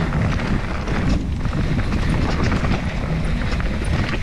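Enduro mountain bike ridden along a dirt trail: a steady low wind rumble on the microphone with many small clicks and rattles from the tyres and bike over rough ground.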